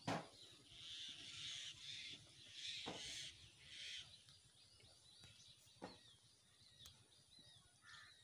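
Faint bird calls: several harsh calls in the first four seconds, then scattered thin chirps. A sharp knock right at the start, and a few fainter knocks later.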